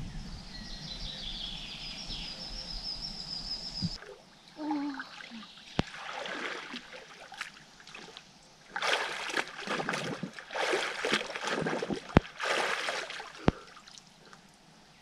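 Water splashing and trickling in irregular bursts, busiest in the second half, with a few sharp clicks.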